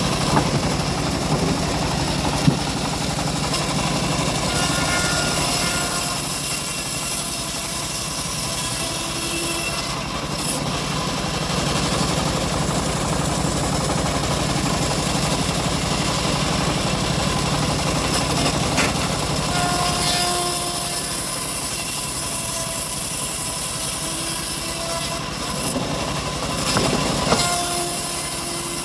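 Engine-driven homemade bandsaw sawmill running steadily as it saws a large teak log, its low drone easing off about twenty seconds in.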